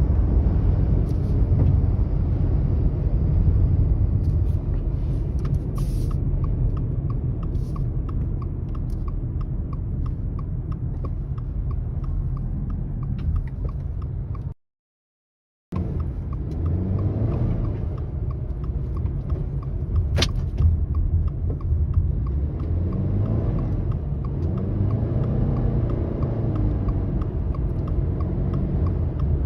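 Strong wind buffeting a moving car, with a steady low rumble of wind and road noise. A regular light ticking of about two a second runs through the second half. The sound drops out briefly near the middle.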